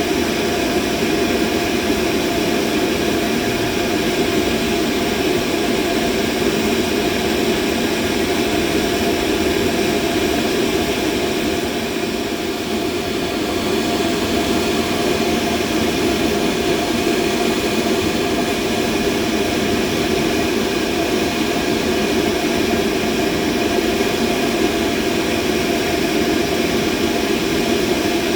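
Steady mechanical hum and whir of a running machine, its noise strongest in a low-middle band, with a slight dip in loudness about twelve seconds in.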